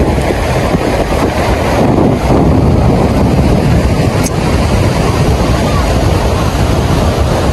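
Wind buffeting the microphone in a steady, heavy rumble, over the hiss of surf breaking on the shore.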